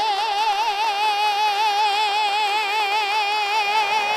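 A man's voice singing one long, high held note with a wavering vibrato into a handheld microphone.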